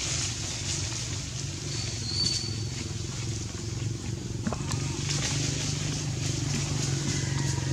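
A steady low, engine-like hum runs underneath. A short high chirp comes about two seconds in, and a few light clicks or rustles follow later.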